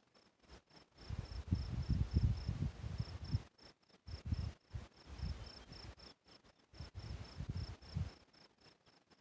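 A cricket chirping steadily, a high, even pulse about three times a second. From about a second in, bursts of low rumble come and go over it and are louder than the chirping.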